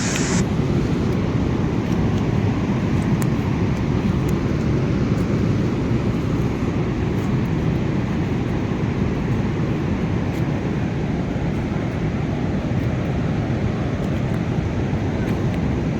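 Steady, loud low roar of the Teesta river in flood, a dense rumbling rush of fast, swollen water with no let-up.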